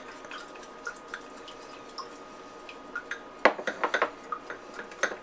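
Wooden chopsticks stirring liquid dressing in a small drinking glass: light, scattered ticks at first, then a quick run of sharp clicks against the glass from about three and a half seconds in.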